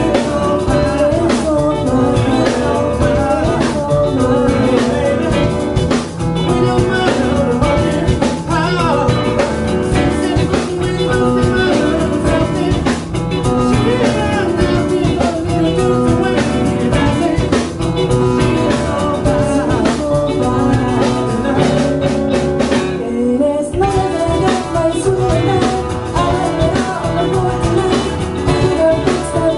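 Live band playing a song with drum kit, electric guitar and keyboard, with singing over it at times.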